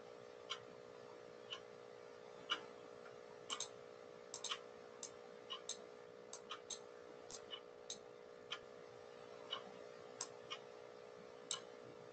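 Faint clock ticking evenly about once a second, with a few extra irregular clicks in between, over a steady low hum.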